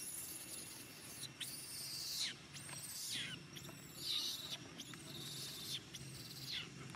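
A baby monkey's high-pitched cries, about six in a row, several falling sharply in pitch at the end of each call.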